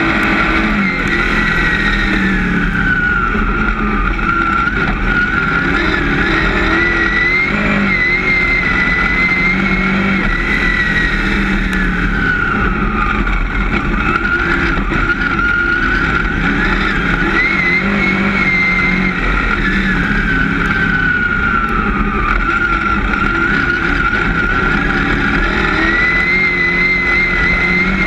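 Dirt-track race car's engine heard from inside the cockpit at racing speed. Its pitch rises on the throttle and falls when backing off, about three times: accelerating down the straights and lifting into the turns lap after lap.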